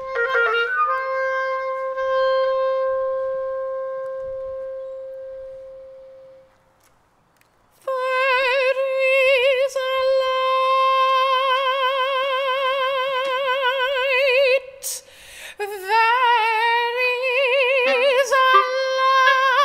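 A long, steady held note fades away, then after a brief pause a woman's soprano voice sings a long sustained note with wide vibrato. Near the end her voice slides upward through further notes with clarinet alongside.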